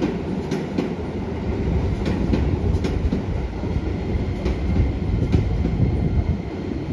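Electric commuter train pulling out of the station and gathering speed: a steady low rumble with sharp wheel clacks over the rail joints, growing a little louder.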